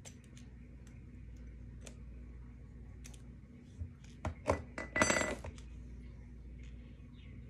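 Roller skate wheel knocked against a metal bearing tool: scattered small clicks, a few sharp knocks about four seconds in, then a quick rattle of metallic clinks with a ringing tone about five seconds in.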